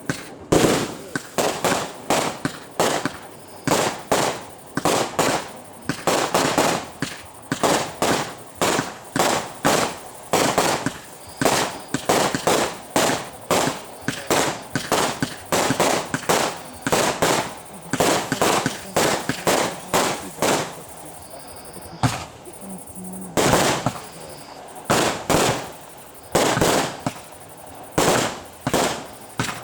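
Fireworks display: shells bursting in steady succession, one or two sharp bangs a second, each trailing off briefly, with a short lull about two-thirds of the way through.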